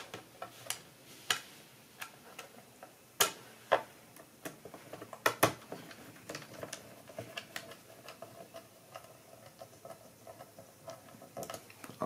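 Small screws being driven into a plastic laptop bottom cover with a screwdriver: scattered light clicks and taps of the driver tip and screws on the case, with a run of quicker small ticks in the second half.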